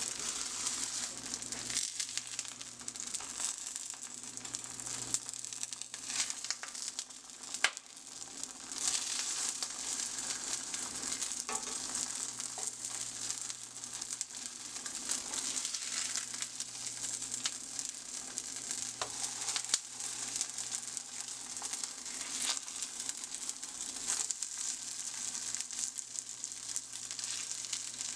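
Vegan mock chicken thighs searing in hot olive oil in a pan, a steady high frying sizzle with scattered sharp pops and crackles.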